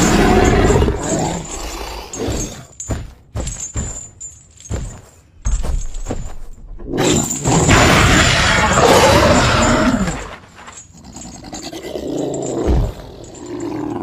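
A film monster roaring and growling, with a run of short sharp hits in the middle and a second long roar after it.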